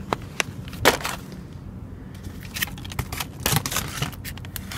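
Plastic food packages rustling, crackling and knocking as they are handled and shifted among other rubbish, in irregular clicks with the loudest about a second in.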